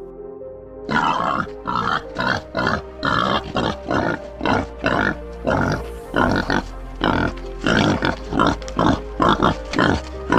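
Pig grunting in a rapid run of short grunts, two to three a second, starting about a second in, over background music.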